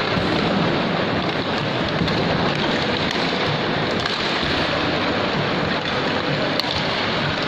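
Steady, even hubbub of a large indoor mall atrium around an ice rink: echoing hall ambience, with a few faint sharp knocks.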